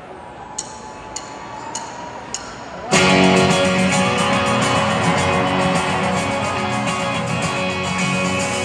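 Live rock band song intro: four evenly spaced clicks counting in over a low crowd murmur, then about three seconds in the full band comes in loud with strummed guitars, bass and drums.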